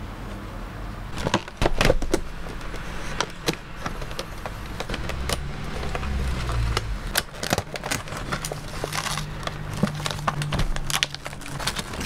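Stiff clear plastic blister packaging being handled and pulled open by hand: a rapid, irregular run of crinkles, clicks and snaps, the loudest about two seconds in.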